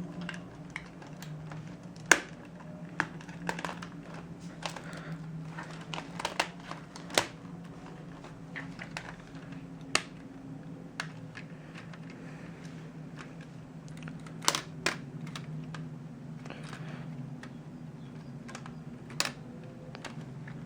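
Scattered sharp clicks and light taps at irregular intervals, over a steady low hum.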